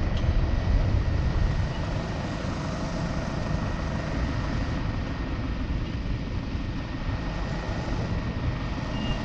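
Steady rumble of travelling along a road in a vehicle: engine, tyre and wind noise, a little louder for the first couple of seconds, then settling.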